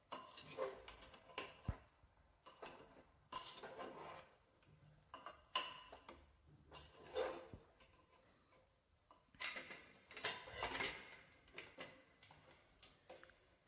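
A spatula stirring chicken and onions in a metal pressure cooker: faint, irregular scrapes and light clinks against the pot.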